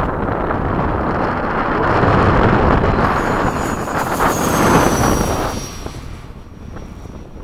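A 90mm electric ducted fan RC jet passing by: a loud rushing whoosh with a thin high whine that slides down in pitch as it goes past, then fades away about five and a half seconds in. Wind buffets the microphone underneath.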